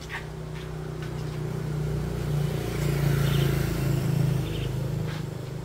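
A motor vehicle passing by, its engine hum growing louder to a peak partway through and then fading. Birds chirp briefly over it.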